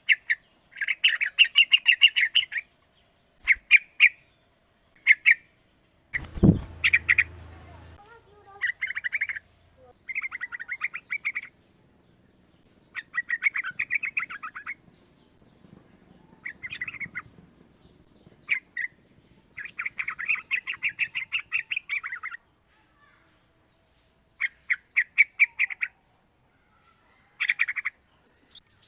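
Young yellow-vented bulbul calling: short runs of quick notes, repeated again and again with brief pauses between them. A single thump comes about six seconds in.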